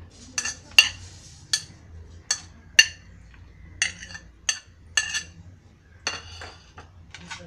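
A steel spoon scraping and knocking against a ceramic plate as chopped vegetables are pushed off it. About a dozen sharp, ringing clinks come at an irregular pace, one every half second or so.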